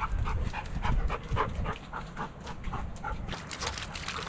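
Dog panting hard and fast, about four or five pants a second, with wind rumbling on the microphone.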